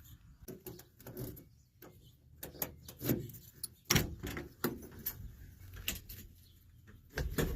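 Clicks and knocks of a Chevrolet C10 pickup's cab door and controls being handled, with a louder thump about four seconds in. Near the end a low rumble begins as the truck's engine starts.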